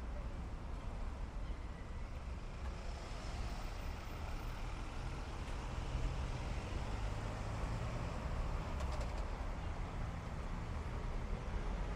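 Town-centre road traffic: a steady low rumble of cars on the street, growing a little louder from about halfway through as a vehicle passes.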